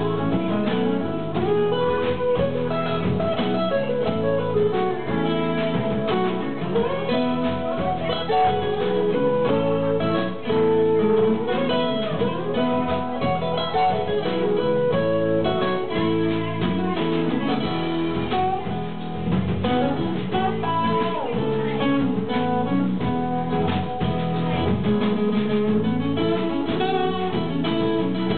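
Live band playing a country-rock song: guitar melody lines over strummed acoustic guitar.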